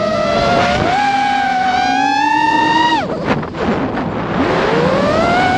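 FPV quadcopter's motors and propellers whining, heard from the camera on the drone. The pitch climbs steadily, drops away sharply about three seconds in as the throttle is cut, then sweeps back up near the end as the throttle is opened again.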